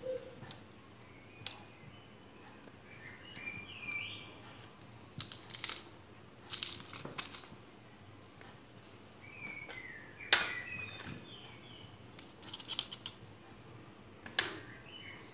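Garlic being crushed in a metal garlic press over a ceramic bowl, with scattered sharp clicks and knocks from the press's handles and jaws. A bird chirps a few times in the background.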